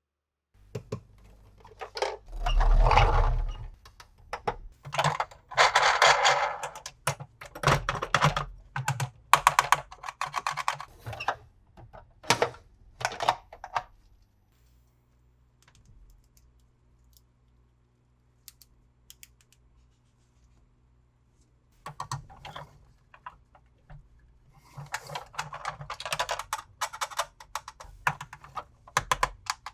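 Hands unboxing plastic toys: sharp clicks and taps of hard plastic with short bursts of crinkling packaging. It goes quiet for several seconds midway, then the rustling and clicking start again.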